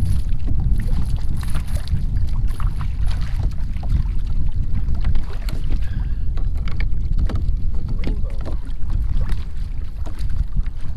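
Steady low wind noise on the microphone, with small waves lapping and slapping against a plastic kayak hull on choppy water, and scattered light knocks and splashes throughout.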